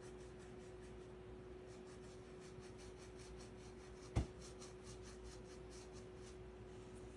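Dry watercolour brush scratching across cold-pressed watercolour paper in quick, faint, repeated short strokes, several a second, in a dry-brush streaking technique. A single sharp click about four seconds in.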